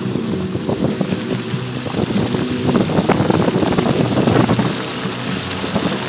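A vehicle driving on a slushy, snow-covered road, heard from inside the cab: road and wind noise with a run of rattling knocks through the middle, over music playing in the background.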